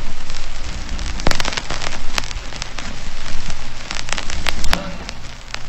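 Steady rain-like hiss with scattered sharp pops and a low hum underneath.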